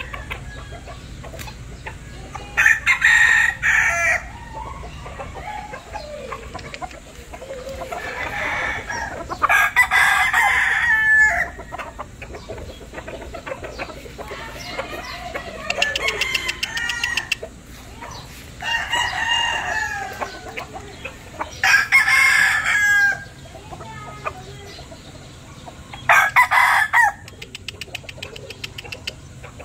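Hatch gamefowl roosters crowing repeatedly: four loud crows, each lasting one to two seconds, with fainter crows between them.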